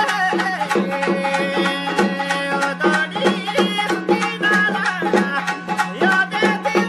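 Background music: a quick, even percussion beat over a steady low drone, with a wavering melody on top.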